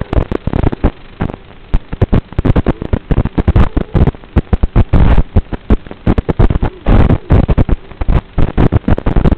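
Loud, irregular crackling and hissing static in rapid bursts from an analog FPV video link's audio channel: interference as the racing drone's video signal breaks up.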